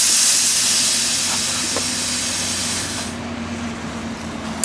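A loud, steady hiss that cuts off suddenly about three seconds in, over a faint low hum.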